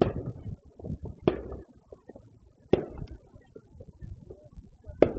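Aerial fireworks bursting: four sharp bangs at uneven intervals, each trailing off in echo.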